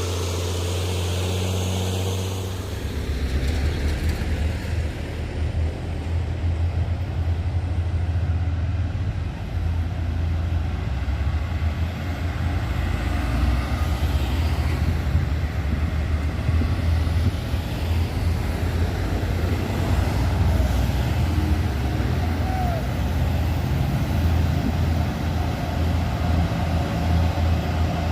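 Heavy truck diesel engine working hard under load while towing a stalled tanker truck up a steep hill. A steady hum for the first couple of seconds turns into a louder, rougher pulling note about three seconds in.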